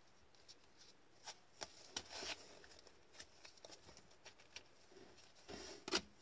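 Cardboard trading cards being slid and flicked off the top of a stack by gloved hands: faint, scattered clicks and swishes of card stock, with a louder snap near the end.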